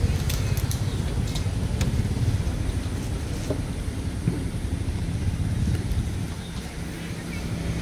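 Low, flickering rumble of background noise, with a few faint clicks in the first two seconds; a steady low hum comes in near the end.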